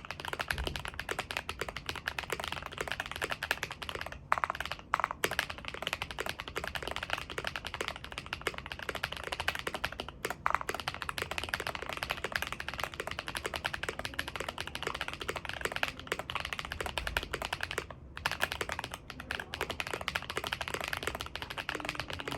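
Fast, continuous typing on a KBD67 Lite mechanical keyboard with a POM plate and lubed Holy Panda tactile switches, a dense stream of keystrokes with a few brief pauses. The keystrokes sound pretty thocky.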